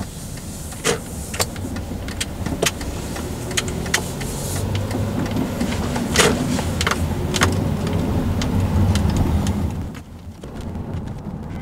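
Car interior noise while driving at low speed: a steady low engine and road rumble that builds over the first several seconds, with scattered sharp clicks and knocks. The level drops suddenly about ten seconds in.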